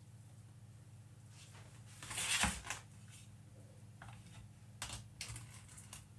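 Kitchen utensils handled while cake batter is spread in a baking tray: one brief scrape about two seconds in, then a few light clicks and taps. A low steady hum runs underneath.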